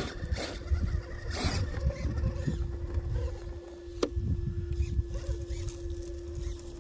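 The RC rock crawler's Hobbywing Xerun AXE brushless motor runs with a steady single-pitch whine as the truck crawls, over an uneven low rumble. A sharp click comes about four seconds in.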